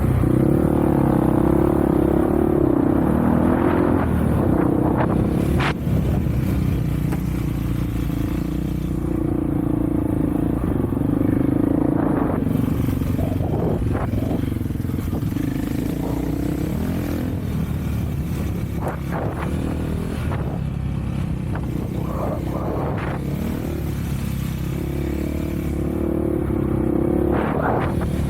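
Off-road vehicle engine running under way, its pitch rising and falling with the throttle, with scattered knocks and clatter over rough ground.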